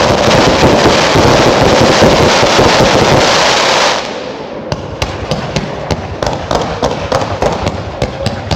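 Consumer category 2 fireworks going off in a finale: a dense, unbroken volley of bangs for about four seconds, which then drops off sharply into a quicker series of separate sharp bangs, about five or six a second.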